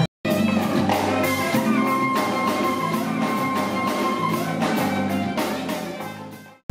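Instrumental background music with a steady beat, starting just after a brief cut-in and fading out near the end.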